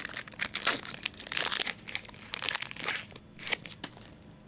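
Crinkly wrapper of a trading-card pack being handled and torn open, in a run of irregular scratchy rustles that die away near the end.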